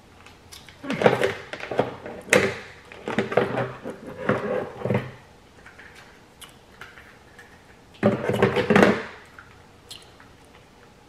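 A small food packet being torn open and handled, rustling and crinkling in several short bursts, with one more burst near the end.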